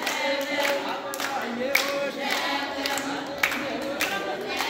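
A group singing together in unison, with steady rhythmic hand clapping of about two claps a second.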